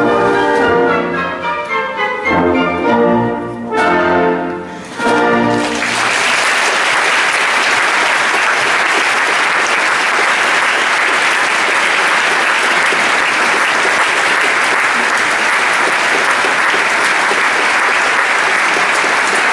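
A theatre orchestra plays the closing bars of a ballet variation, ending on two loud chords about four and five seconds in. Steady audience applause follows for the rest of the time.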